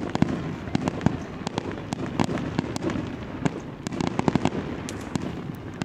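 Fireworks display going off: a rapid, irregular run of bangs and crackles, several a second.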